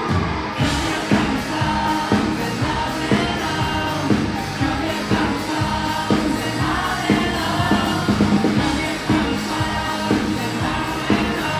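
Live rock band playing with vocals: drums keeping a steady beat about once a second under guitars and a sung melody.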